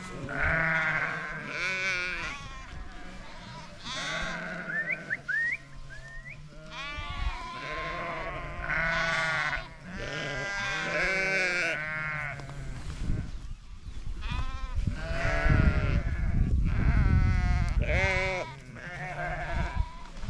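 Flock of sheep bleating, many overlapping calls one after another, with a low rumble through the second half.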